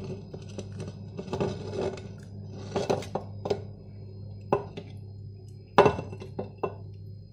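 A glass bowl knocking and clinking against a clay tagine while a silicone spatula scrapes meat and sausages from the bowl into the pot: a scatter of short knocks, the loudest about six seconds in. A steady low hum runs underneath.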